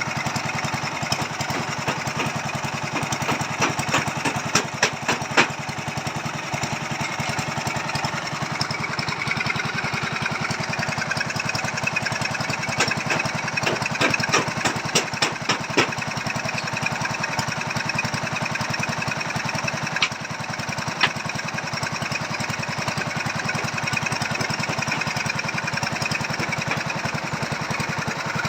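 Small petrol engine of a foundation auger drilling machine running steadily. Several clusters of sharp metallic knocks come through over the drone, a few seconds in and again mid-way, with two single knocks later.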